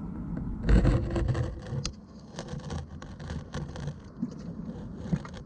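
Water splashing and churning close to the camera's microphone, in uneven noisy bursts with a few sharp clicks, starting with a heavy thump about a second in.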